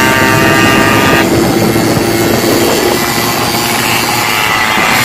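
Yamaha RX two-stroke motorcycle engine running at a steady speed, heard from the rider's seat. Its tone thins about a second in, and again a little past halfway.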